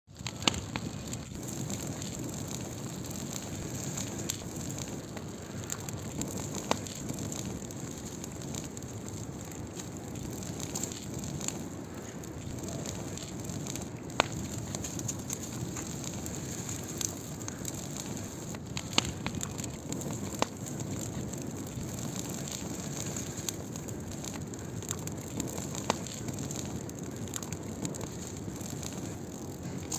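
Burning firewood crackling, a steady hiss and rustle with sharp pops every few seconds.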